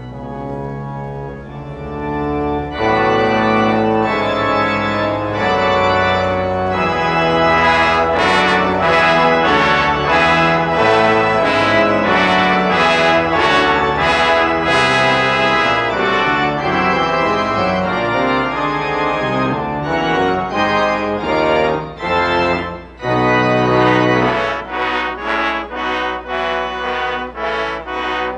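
Organ postlude with brass at the close of a church service: full, sustained chords, softer for the first few seconds and then much fuller, with a short break and a held chord near the end followed by quicker detached chords.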